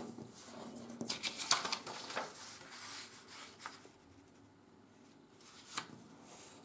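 Sheet of 80 g/m² office paper rustling and crinkling as it is folded over by hand and the crease pressed along, busiest in the first four seconds, then quieter, with one short tick about six seconds in.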